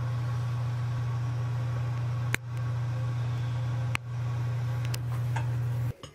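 Steady low electrical hum of a running kitchen appliance, broken by two short clicks, cutting off abruptly near the end.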